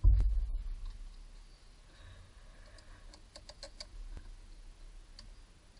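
A low thump as the starter motor is handled, then light clicks and taps of hands working at the starter motor and its solenoid wiring, with a quick run of clicks about three seconds in.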